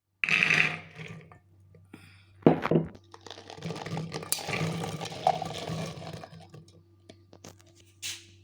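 Water poured and splashing, with a sharp knock about two and a half seconds in, over a steady low hum.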